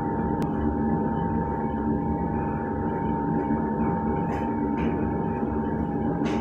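Semi-automatic noodle-making machine running steadily: a continuous motor hum with a steady high whine over it, and a few faint clicks.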